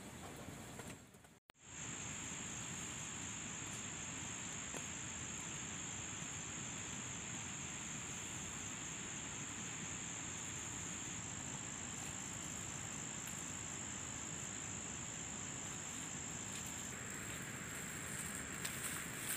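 Insects trilling in one continuous high-pitched tone over a steady background hiss, starting after a brief gap in the sound a second and a half in. Light rustling of leaves near the end.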